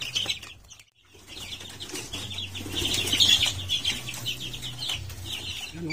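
A brood of young chicks peeping, many short high chirps, with bursts of wing flapping as young chickens spar. The sound drops out briefly about a second in.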